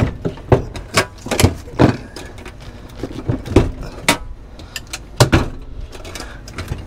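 A heavy 48V lithium golf cart battery being lowered into the cart's battery bay, knocking and clunking against the compartment frame: about ten sharp knocks at uneven intervals, some loud.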